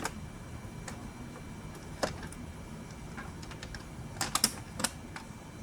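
Light plastic clicks and clacks from a Hot Wheels die-cast car on plastic track, with a single click about two seconds in and a quick cluster of sharper clicks about four seconds in.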